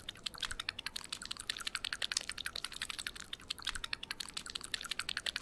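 Rubber suction cups squelching against window glass: a fast, uneven stream of small wet clicks and pops, what good mac and cheese sounds like.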